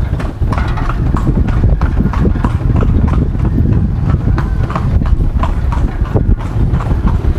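Horse's hooves clip-clopping at a steady walk on a paved street as it pulls a carriage, a few hoof strikes a second over a steady low rumble.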